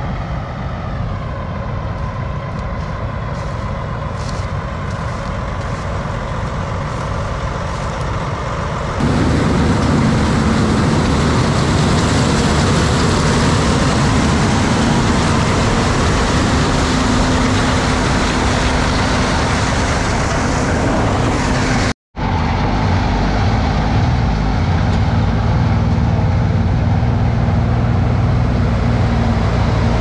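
Combine harvester running while harvesting corn: a continuous loud machine hum with a steady low tone. The sound steps louder about nine seconds in and drops out for an instant about twenty-two seconds in.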